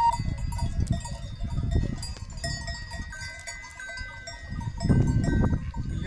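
Bells on a herd of cattle ringing irregularly as the cows walk past, several clear bell tones overlapping, over a low rumbling noise that swells about five seconds in.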